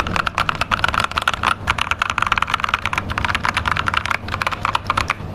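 Mechanical keyboard with newly fitted keycaps being typed on rapidly: a fast, continuous stream of key clacks. The owner finds the sound poor, no better than his old keycaps.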